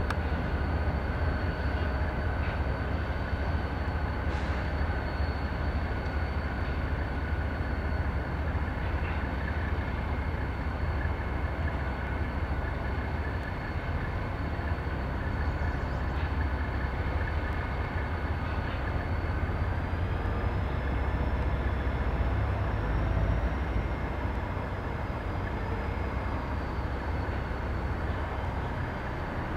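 Reading & Northern diesel locomotives moving slowly with a train of covered hoppers: a steady low engine rumble with wheel noise, and a thin steady high whine over it.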